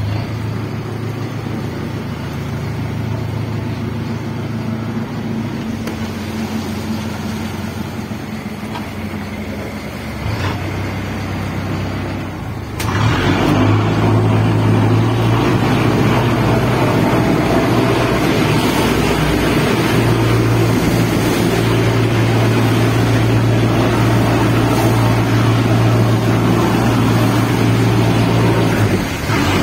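A fishing boat's inboard engine running steadily under way, with water rushing along the hull. Partway through, the engine gets suddenly louder and stays that way.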